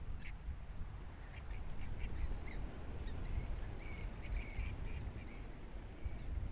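Birds calling outdoors: a series of short, pitched calls, busiest in the middle, over a steady low rumble.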